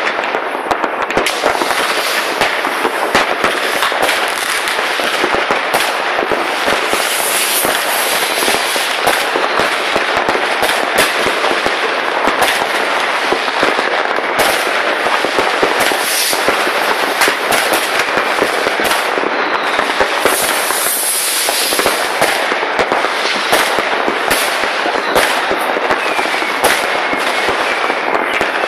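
New Year's Eve fireworks: a dense, continuous barrage of firecrackers and rocket bangs, crackling and popping over one another without a break.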